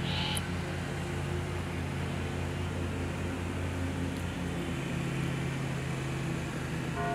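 Steady low mechanical hum, with a brief high-pitched sound about a third of a second in.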